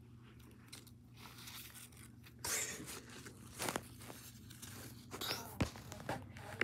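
Paper cutouts being handled and slid over carpet: intermittent rustling and scraping, with a few sharp knocks.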